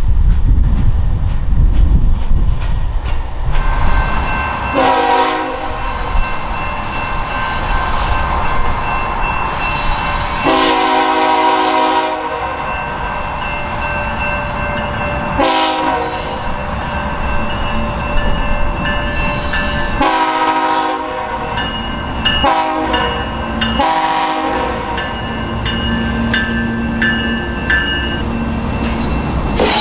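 Low rumble and wind of a freight train rolling past, then a Canadian Pacific diesel locomotive's multi-chime air horn sounding six blasts, long and short, as it approaches a grade crossing, with the crossing bell ringing steadily behind. Near the end the lead locomotives' diesel engines run past.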